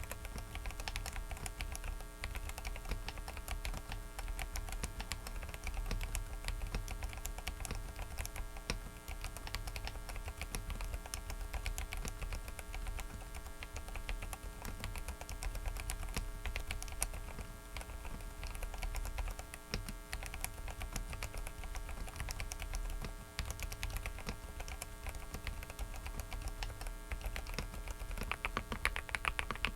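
Typing on a Dareu mechanical keyboard: a dense, irregular run of keystrokes. Under it runs a steady electrical hum and buzz from a faulty microphone.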